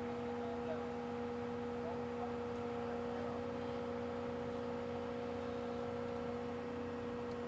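Excavator engine and hydraulics running at a steady speed, giving an even, unchanging hum.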